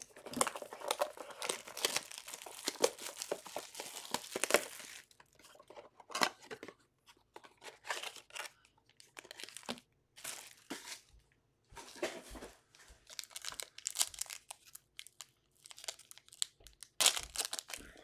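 Trading card packaging being handled: a dense stretch of crinkling and tearing for the first few seconds, then scattered rustles of foil card packs. Near the end a foil pack is torn open with loud crinkling.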